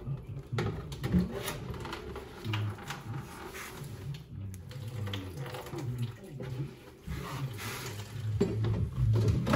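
Water trickling and running under a kitchen sink unit, with a few knocks as a plastic bowl is set down beneath the copper pipework to catch it.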